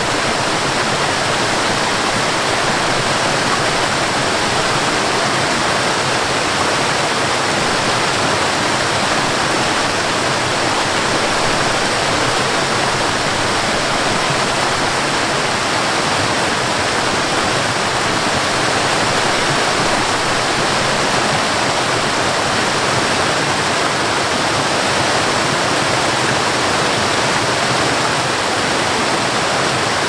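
Waterfall cascading over rocks: a steady, even rush of falling water.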